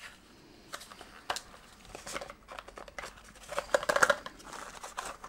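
A small white cardboard box being handled and opened by hand: scattered taps and scrapes of card, with a louder rustle of the card flaps about four seconds in.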